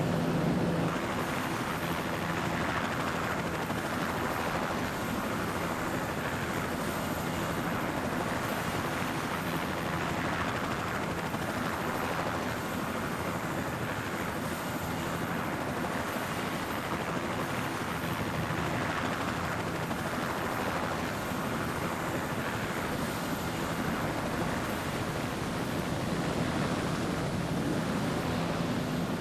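Helicopter running steadily overhead, a continuous engine and rotor drone with a rushing wash that swells and fades every couple of seconds.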